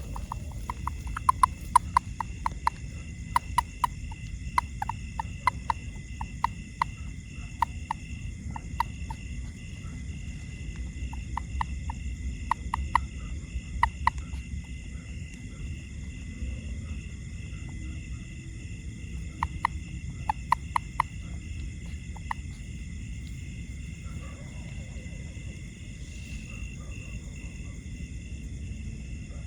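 A frog calling in bursts of short, rapid clicking pulses, a few to several a second, with pauses between bursts, over a steady high-pitched background chorus.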